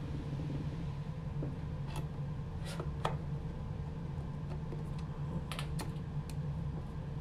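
Scattered small clicks of a screwdriver turning a screw into a sheet-steel enclosure panel, several close together about five and a half seconds in, over a steady low hum.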